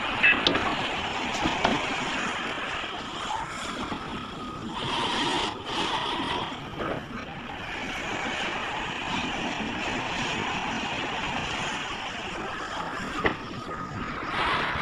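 Heavy earthmoving machinery running steadily, with a few sharp knocks: near the start, about a second and a half in, and near the end.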